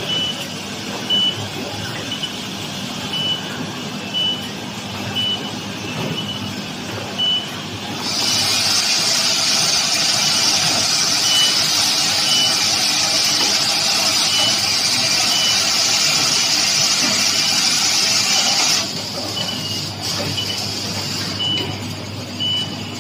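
Automatic drum coil soldering machine and its vibratory bowl feeder running steadily, with a short high beep repeating a little faster than once a second. About eight seconds in a loud steady hiss starts, and it cuts off near nineteen seconds.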